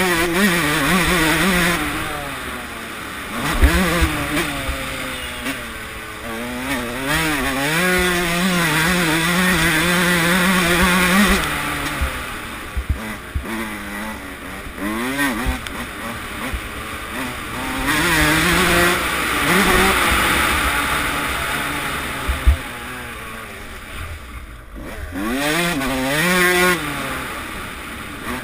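Suzuki RM144 two-stroke motocross bike engine heard from the rider's helmet, revving hard and backing off again and again, its pitch climbing through the gears and dropping into corners, with a rushing hiss of air over the microphone. A few sharp knocks cut in along the way.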